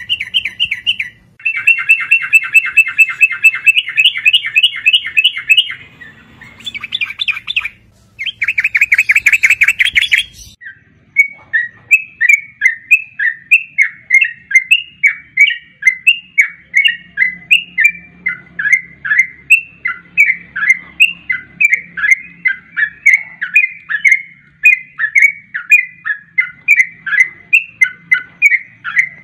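Yellow-vented bulbul calls. About ten seconds of fast chattering trills come in several bursts, then give way to a steady series of short down-slurred notes, about two a second.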